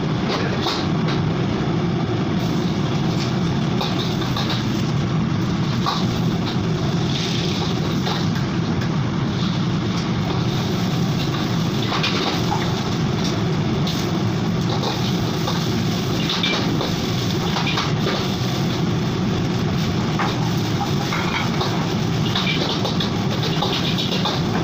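Steady roar of a gas wok burner, with a steel ladle scraping and clanking against the wok now and then as fried rice is stirred and tossed.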